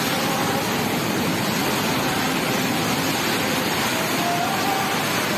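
Heavy rain pouring down in a steady, dense rush that holds at one level, with a faint wavering tone underneath.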